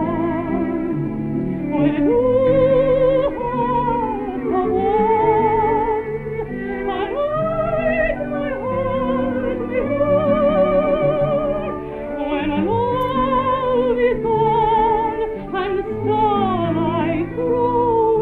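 Operatic soprano singing with strong vibrato, holding long notes over orchestral accompaniment, in an old recording with a narrow, muffled sound.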